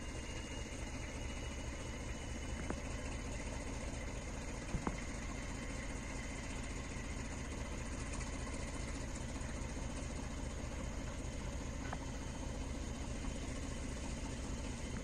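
Distant DF7G-C diesel-electric locomotive running steadily at low power with a low, even engine rumble; a few faint short clicks come through early on.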